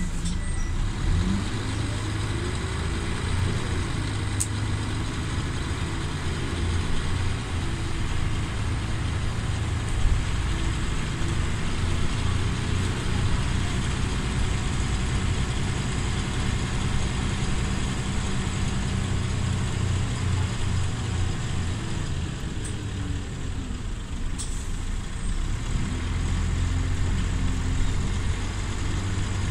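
Volvo B10BLE bus's rear-mounted six-cylinder diesel engine running while the bus drives, heard from inside the passenger saloon. The engine note rises and falls a few times as it pulls and eases off, under a steady hum of road and cabin noise.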